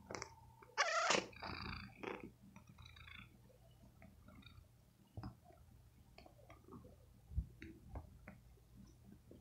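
Tabby cat purring steadily while suckling on a fleece shirt, with soft clicks from its mouth working the fabric. About a second in comes a short, louder pitched sound. The shirt-sucking is comfort nursing, which the owner puts down to the cat being taken from its mother too early.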